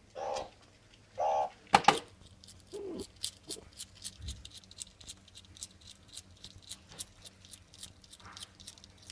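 Meerkat's front claws scratching and clicking on slate floor tiles as it digs at the floor, about five quick scrapes a second from about three seconds in. Before that come a few short calls and two sharp clicks.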